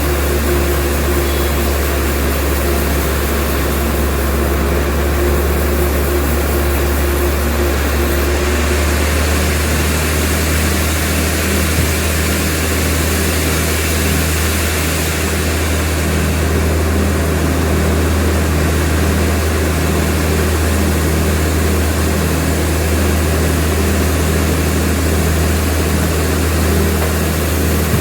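Sawmill machinery running steadily: a loud, even mechanical drone with a low hum, whose tone changes about nine seconds in.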